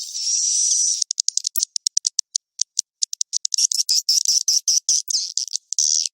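Recorded swiftlet roosting-call lure ('suara inap') for a swiftlet house. Buzzy chirring calls break about a second in into a run of rapid sharp clicks mixed with short chirps, and the chirring returns near the end. The track is filtered, with nothing in the low register.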